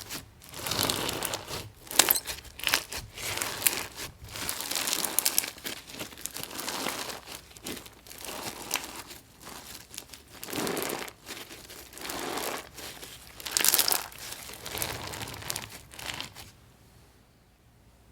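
Gritty, crunchy slime being squeezed and pressed by hand, giving irregular crackling and crunching bursts. It stops about a second and a half before the end.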